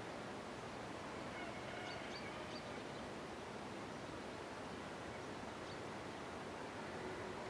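Steady outdoor background hiss with a few faint bird chirps about two seconds in.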